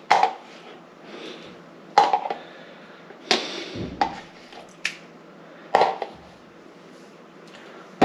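A kitchen utensil knocking and clinking against a dish, about seven separate sharp knocks spread unevenly over several seconds, as sauce is spooned into a baking dish.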